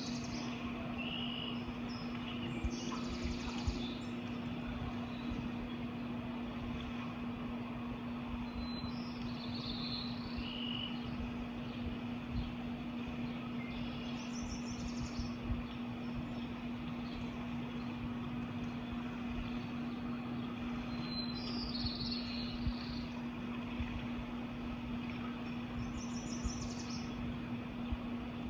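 Wild birds giving short, high chirps in brief groups about every five or six seconds, over a steady noisy background with a constant low hum.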